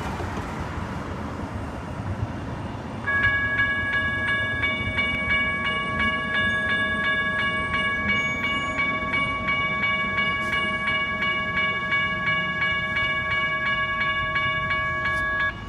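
Railroad crossing's General Signals Type 1 electronic bells start ringing about three seconds in, a steady ding repeated at about three strokes a second, then cut off abruptly just before the end. The bells stop when the gates have come down to horizontal.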